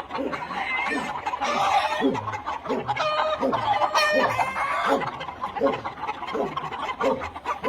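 A flock of gamefowl chickens clucking continuously, with roosters crowing over it.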